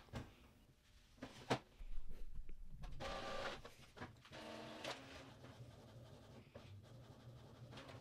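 Epson WorkForce inkjet printer running a nozzle check print: a few clicks, then the whirr and short whines of its paper-feed and carriage motors, settling into a steady low hum.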